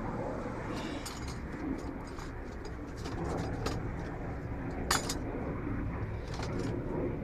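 Scattered light metallic clicks and clinks of small parts being handled at a steering-wheel hub, with one sharper click about five seconds in.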